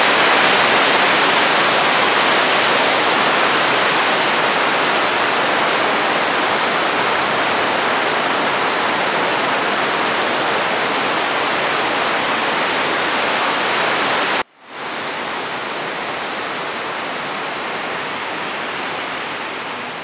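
Chōshiguchi Falls, a waterfall about 20 m high, giving a steady, loud rush of falling water. A little past the middle it cuts off for an instant and comes back slightly quieter as rushing water.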